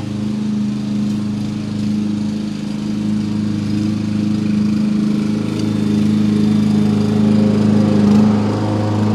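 A steady motor drone holding one low pitch with its overtones, growing a little louder toward the end.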